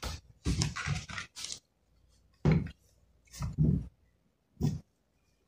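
Handling noise as a laptop is turned over on a desk: several short rustling, scraping bursts with silence between them.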